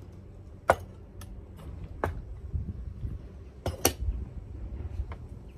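Plastic plant pots clicking and knocking as they are handled during potting, about half a dozen sharp clacks, the loudest a little under a second in and a quick pair near four seconds.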